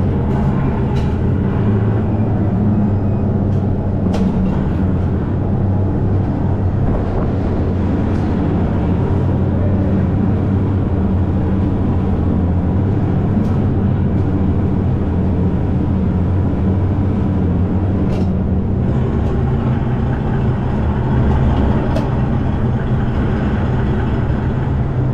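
Electric go-kart driving on the track, heard from the driver's seat: a steady low rumble of motor and tyres, with a few short clicks.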